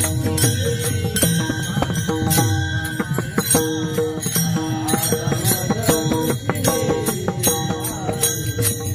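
Marathi devotional kirtan music: held instrumental notes under a steady percussive beat, with a chanting voice coming in about five seconds in.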